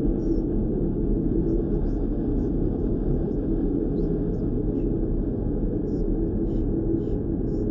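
Synthetic red noise: a steady, deep hiss with most of its weight in the low end and little above. Faint short high ticks are scattered irregularly through it.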